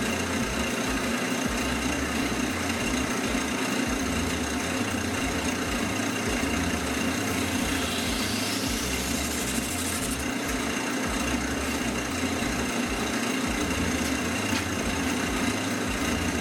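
Wood lathe running at steady speed, its motor humming evenly as it spins a paint-covered canvas, with a faint rising whistle about halfway through.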